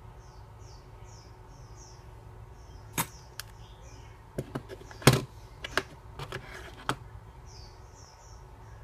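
A run of sharp clicks and knocks, about eight in all between three and seven seconds in, the loudest a little after five seconds. Faint high bird chirps come in pairs behind them.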